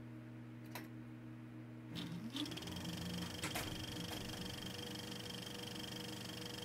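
Electronic logo sting: a steady low drone, then about two seconds in a short rising sweep with a few sharp clicks, after which a thin high tone holds over it.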